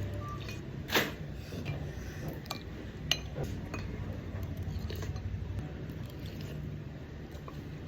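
Cutlery clinking against a bowl while eating, with two sharper clinks about one and three seconds in and lighter taps between, over a low steady hum.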